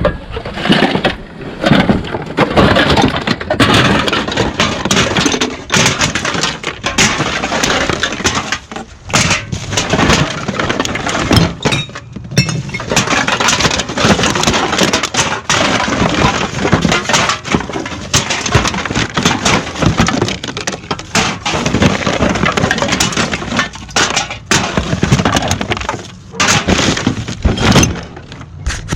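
Continuous clattering and clinking of hard containers, glass among them, being rummaged through and sorted, with many sharp knocks and crackles in quick succession and brief lulls.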